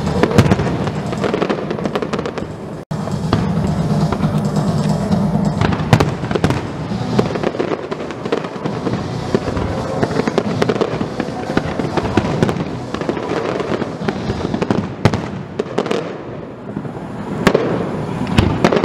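Aerial firework shells bursting one after another, with sharp bangs and crackling, over music playing underneath.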